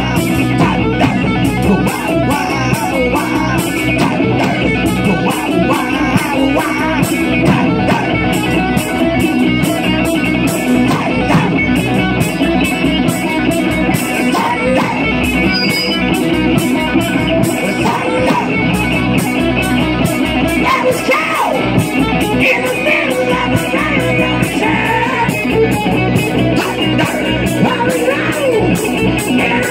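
A live rock band playing loud through Marshall amplifier stacks: distorted electric guitars, bass guitar and drums with steady cymbals, and a male singer's voice at times.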